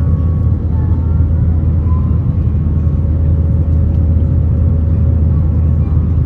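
Airbus A321 cabin noise in flight, heard from a window seat over the wing: a loud, steady low rumble of the engines and airflow, with a faint steady hum above it.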